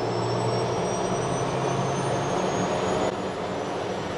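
Piper Meridian's Pratt & Whitney PT6A-42A turboprop spooling up during engine start, heard inside the cockpit: steady engine noise under a high whine that rises slowly in pitch as the gas generator accelerates after light-off. A normal start, which the pilot calls a good start, with ITT peaking about 720°C.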